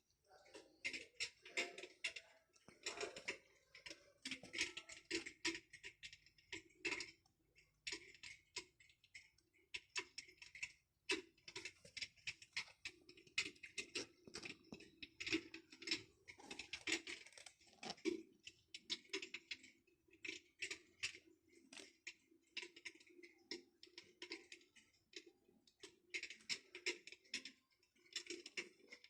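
Electric fireplace's crackling-log sound effect: dense, irregular snaps and pops over a low steady hum, coming in clusters.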